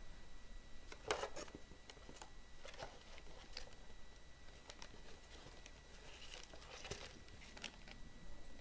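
Faint crinkling of a small plastic bag of keyboard keycaps being handled, with scattered light clicks.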